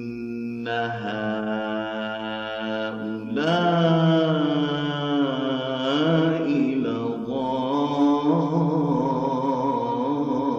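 Quran recitation in melodic tajweed style: a single voice holding long drawn-out notes with wavering, ornamented rises and falls in pitch.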